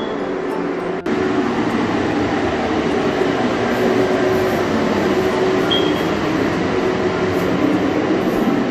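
Steady drone of a motor or fan running, with a brief break about a second in.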